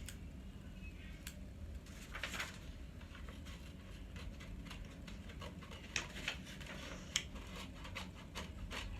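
Scissors cutting a folded sheet of paper in half: scattered snips and paper rustling, with a brief crinkle a couple of seconds in and a run of sharper snips in the second half.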